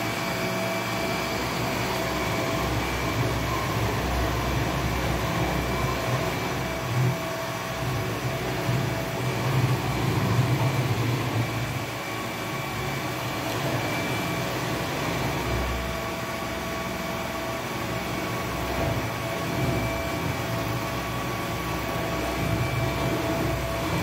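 AEG RX9 robot vacuum cleaner running: a steady motor and suction-fan hum with constant whining tones, over a low rumble that swells and eases as the robot drives about and turns.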